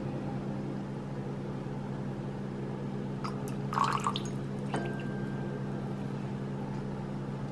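A low steady hum, with a few faint clinks of a wine glass holding frozen fruit in white wine about halfway through; one clink rings on briefly as a thin tone.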